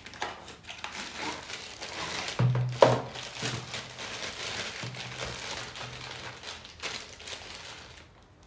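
Laptop charger being unpacked from its cardboard box: the plastic bag around it crinkles and rustles as it is handled, with small knocks, the loudest a little under three seconds in.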